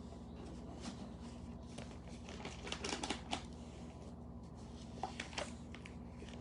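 Scattered light clicks and rustles of objects being handled, clustered about two and a half to three and a half seconds in and again about five seconds in, over a steady electrical hum.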